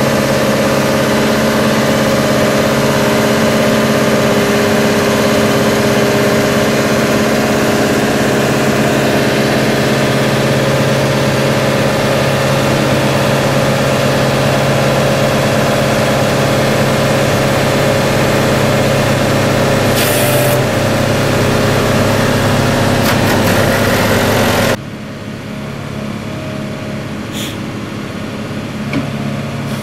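Caterpillar 277C compact track loader's diesel engine running steadily, close up, while it pushes a front-mounted grader blade through sand. About 25 seconds in, the sound drops abruptly to a quieter, more distant engine.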